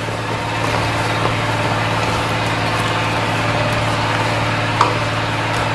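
Steady low mechanical hum with an even hiss over it, like a running motor or fan, and a single light click near the end.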